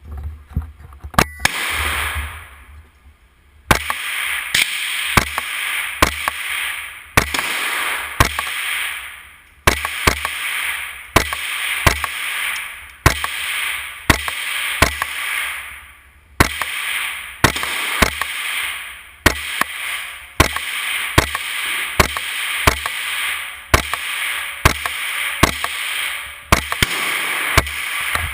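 Gunshots fired in a steady run, several dozen sharp cracks spaced from under half a second to about two seconds apart. Each shot is followed by a long, echoing tail that fades over a second or two.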